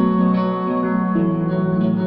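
Background music played on plucked guitar, with sustained notes changing about once a second.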